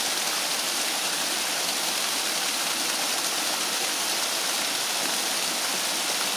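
Falling water at a hot-spring pool: a small waterfall pouring in, and water spilling over the pool's stone rim onto rocks, giving a steady, even rush.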